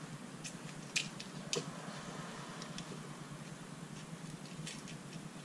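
A knife blade cutting a paper carburettor gasket: a few light clicks and scratches, the sharpest about a second in, over a steady low hum. The blade is blunt.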